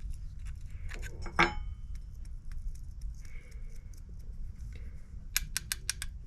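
Small metallic clicks and clinks as a tool works at an old brass shell casing. There is one ringing clink about a second and a half in, and a quick run of five sharp clicks near the end.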